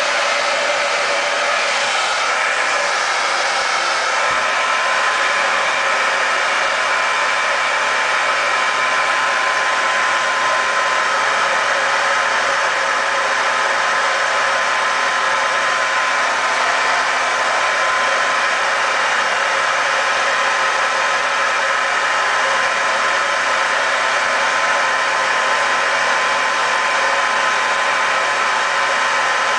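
Hand-held hair dryer running steadily on high: an even rush of blowing air with a constant whine.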